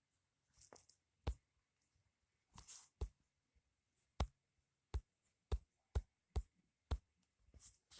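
About a dozen sharp, irregular clicks and taps from operating a device while clicking through an app, with faint handling rustle between them.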